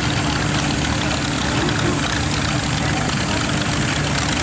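Vintage tractor engines running steadily on the rally field, a continuous engine drone with a low, steady hum.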